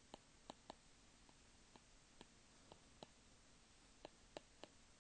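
Near silence broken by about a dozen faint, irregular clicks: a stylus tapping on a tablet screen as handwriting is written.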